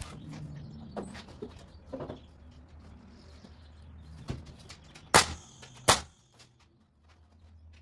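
Two shots from a pneumatic air nailer driving nails into the wooden frame, a sharp bang each, about three-quarters of a second apart. Before them come a few lighter knocks.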